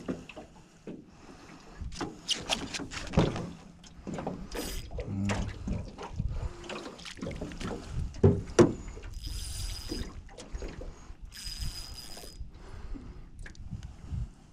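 Knocks and clatter of a landing net and fishing gear against a small boat's hull, with water splashing, as a big flathead is fought beside the boat. Two separate buzzing bursts of about a second each come through past the middle.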